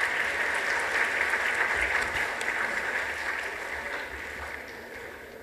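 Audience applauding, a steady patter of many hands that fades away over the last second or so.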